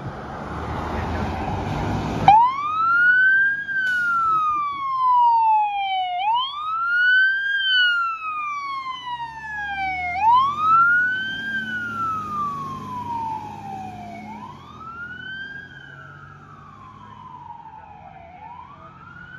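Fire engine's electronic wail siren. Each cycle climbs quickly and then falls slowly, repeating about every four seconds. It starts about two seconds in, after a rushing noise that cuts off abruptly. The truck's engine is heard under the siren in the middle as it passes, and the siren fades near the end as it drives away.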